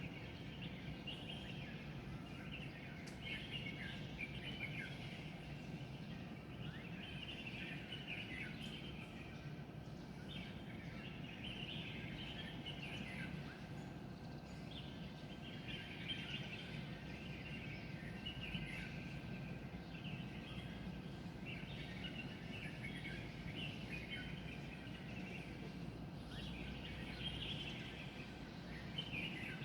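Many small birds chirping and twittering together in a dawn chorus, the calls overlapping without pause, over a steady low background hum.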